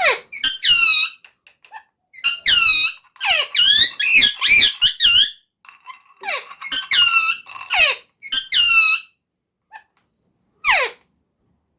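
Parrot squawking in a series of shrill calls with short gaps between them, several sweeping sharply down in pitch; the calls come thickest about three to five seconds in, and a last downward sweep comes near the end.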